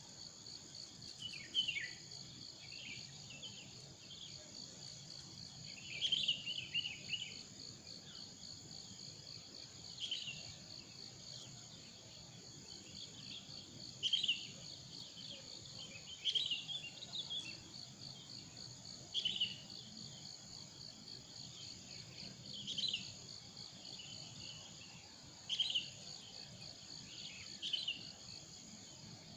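Steady, high-pitched pulsing chorus of forest insects, with a bird giving short, falling calls every few seconds, about ten times.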